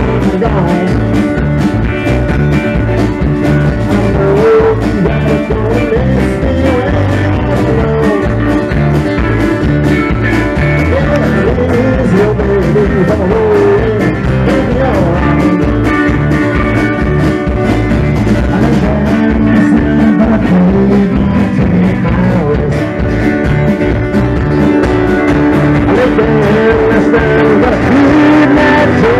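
A rock band playing live Southern roots rock: drum kit, electric and acoustic-electric guitars, with a male lead singer singing over them.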